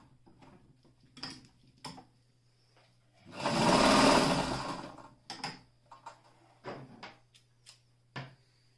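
Alfa Model 42 heavy-duty electric sewing machine running in one short burst of about a second and a half, stitching through layers of thick brown fabric. A few sharp clicks and knocks come before and after it.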